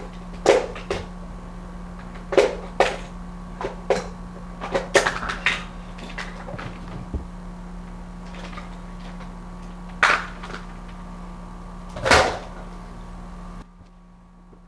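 Scattered sharp clicks and knocks of plastic and hardware being handled while an outlet extender is fitted to a wall outlet, over a steady electrical hum.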